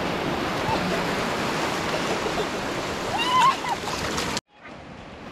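Surf washing up the shallows in a steady rush of water, with a small child's short high squeal about three seconds in. Near the end the sound drops out abruptly and returns as a quieter rush of waves.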